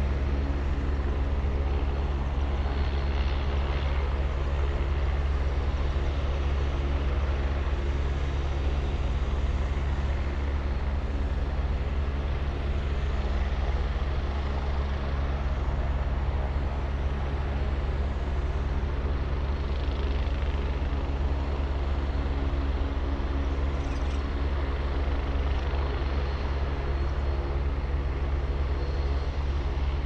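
Agusta A109 twin-turbine helicopter running on the ground with its rotors turning: a steady turbine whine over a continuous low rotor drone.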